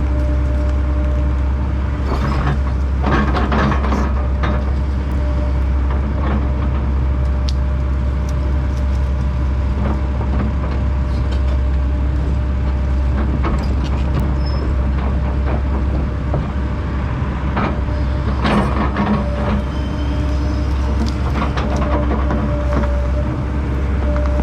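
Heavy land-clearing machinery running steadily under load, with a deep diesel rumble and a held whine. Two bursts of sharp crackling come through it, a few seconds in and again later.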